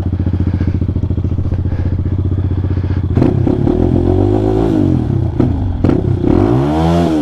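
Hawk 250's 230cc single-cylinder engine through an aftermarket JFG bolt-on exhaust, idling steadily and then revved in a few throttle blips from about three seconds in, pitch rising and falling each time; very loud.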